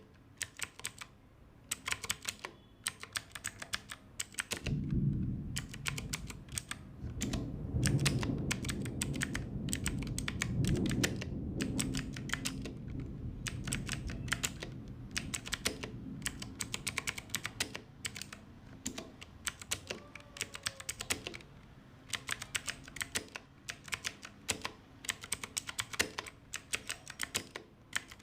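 Typing on an Ajazz AK33 mechanical keyboard with blue switches: quick runs of sharp, clicky keystrokes broken by short pauses. From about five seconds in, a low rumble sits under the typing. It is loudest a few seconds later and fades out by about twenty-two seconds.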